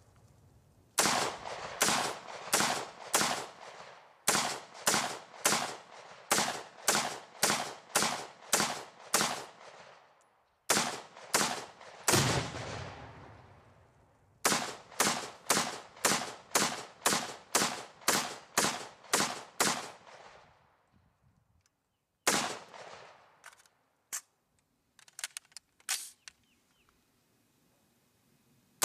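AR-15 carbine firing rapid semi-automatic shots, about two to three a second, in strings of several with short pauses between them. Near the end come a lone shot and a few faint clicks.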